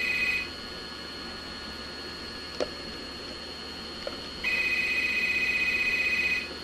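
Electronic ringer of a corded desk telephone ringing: a warbling trill in two-second rings with about four seconds between them, one ring ending about half a second in and the next starting near the end. A sharp click sounds in the gap between rings.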